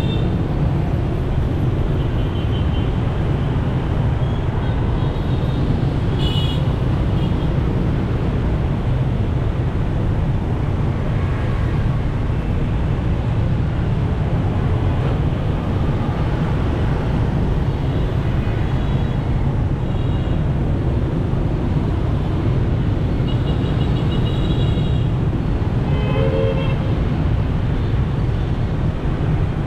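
Steady road and engine rumble of city traffic heard from a moving vehicle, with several short vehicle horn toots.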